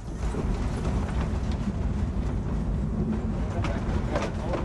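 Lisbon Remodelado tram running along its street track, heard from inside the car: a steady low rumble of wheels on rail with a few scattered clicks and knocks.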